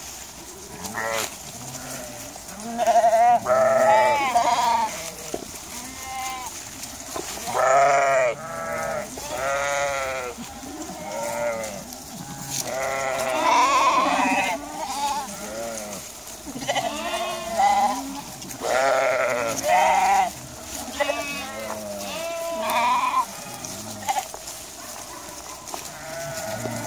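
A flock of sheep with many lambs bleating, one call after another and often overlapping, each with a quavering pitch.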